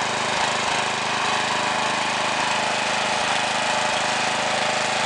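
Ride-on lawn mower engine running steadily as the mower drives across rough grass.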